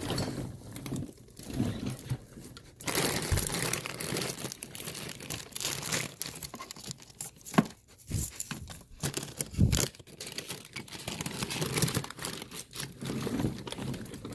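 A crinkly bag rustling and crackling irregularly as it is rummaged through.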